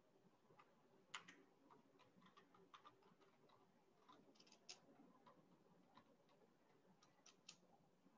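Near silence: faint room tone with scattered, irregular soft clicks.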